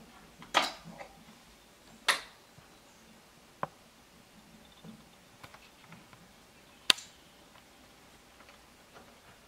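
Four sharp clicks or knocks spread a second or more apart, with fainter ticks between them.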